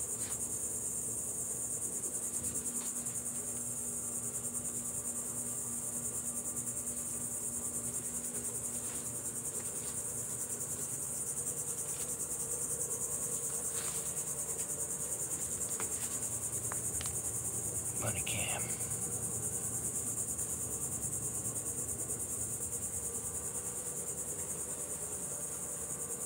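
Insects trilling in a steady, shrill, high-pitched chorus that does not let up, with a brief call about two-thirds of the way through.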